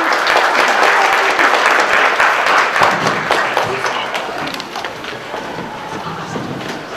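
Audience applauding after a song, loudest at first and dying down over the last few seconds.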